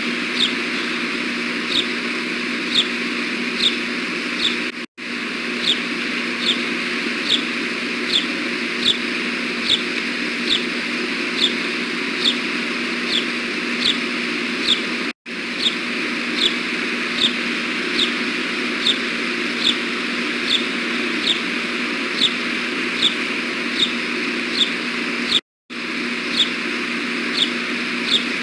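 Osprey chirping: short, high-pitched chirps repeated at an even pace, about three every two seconds, over a steady hiss of road traffic. The sound cuts out briefly three times.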